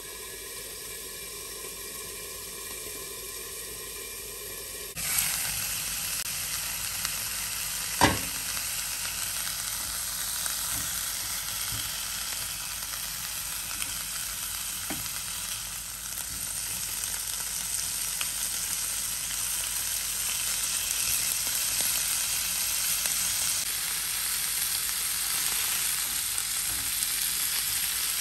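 Pork belly–wrapped cherry tomato skewers sizzling in a nonstick frying pan. The sizzle is muffled under the pan lid for the first five seconds, then becomes a brighter, louder open sizzle once the lid is off. There is a sharp clack about eight seconds in, and the sizzle grows a little louder near the end.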